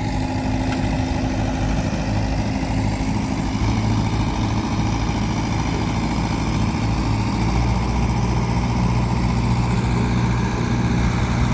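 Mahindra 585 tractor's diesel engine running steadily while it works the hydraulic tipper that raises a trolley full of soil, its hum a little louder after a few seconds.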